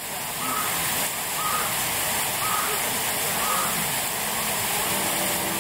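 Steady rushing of running water, like a water feature, with faint voices behind it.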